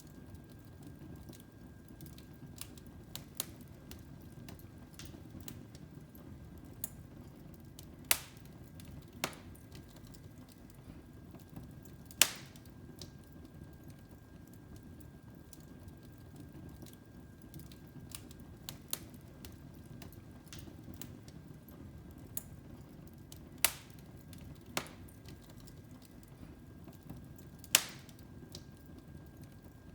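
Wood fire crackling in a fireplace: irregular sharp pops, a few of them much louder, over a low steady rumble.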